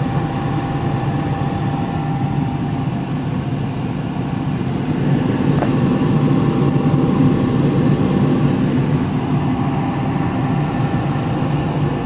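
Oil-fired furnace running with its burner lit and fans going: a steady hum with a faint constant tone, swelling a little midway.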